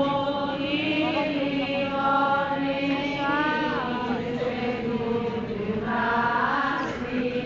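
Voices chanting a traditional religious litany, holding long notes over a slowly moving melody.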